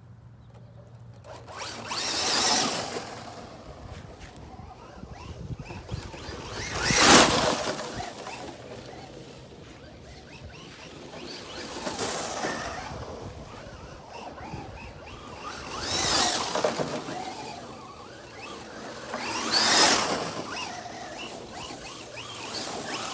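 Traxxas Rally Fiesta electric RC car driving over grass and dry leaves: motor whine and tyres rustling through the leaves. The sound swells and fades five times, loudest about seven seconds in.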